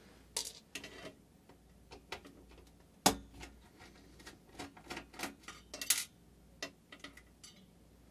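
Scattered small clicks and taps of hands and tools working screws out of a router's circuit board and metal case, with one sharper knock about three seconds in.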